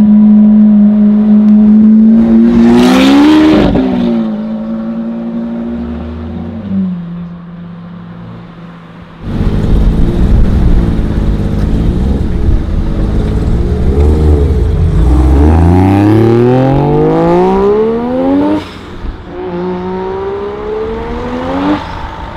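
A Lamborghini Aventador's V12 holds a steady note, swells briefly about three seconds in, then fades away. After a cut, a Mazda RX-7's rotary engine revs up in long rising sweeps, and again near the end.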